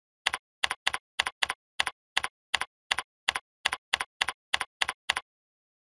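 Computer keyboard typing: about sixteen separate keystrokes at roughly three a second, each a short double click of key press and release, stopping shortly before the end.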